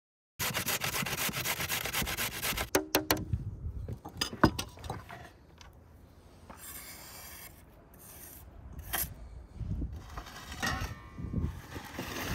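A knife blade scraping grated carrot across a wooden cutting board in fast, repeated strokes for about two seconds, followed by a few sharp knocks and lighter, intermittent scraping.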